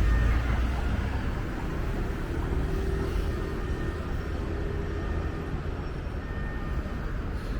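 Steady low rumble of city background noise, with faint steady tones over it.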